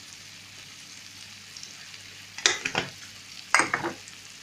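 Mussels, onion and garlic sizzling in hot oil in a tagine, a steady frying hiss. Two short bursts of clinking and scraping from a utensil stirring against the pot, about two and a half and three and a half seconds in.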